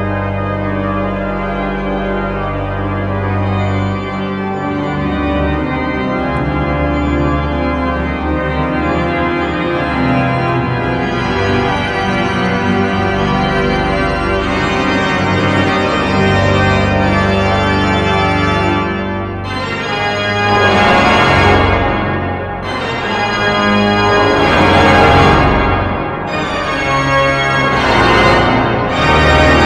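Pipe organ improvisation: sustained chords over low pedal notes, turning fuller and brighter about two-thirds of the way through, with loud swelling chords near the end.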